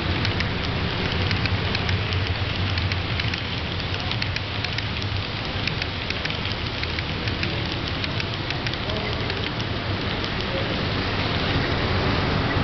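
HO scale model passenger coaches rolling past close by: a dense, steady crackle of small wheel clicks on the rails over a low hum.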